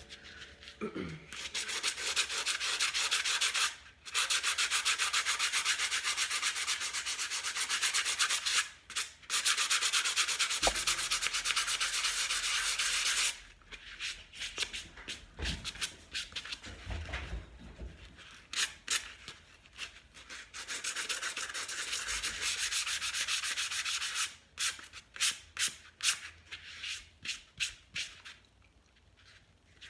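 Fine-grit sandpaper rubbed by hand over a painted mason jar, lightly sanding the paint back for a distressed, rustic finish. Long continuous rasping for the first dozen seconds with two brief pauses, then separate back-and-forth strokes that turn short and quick near the end.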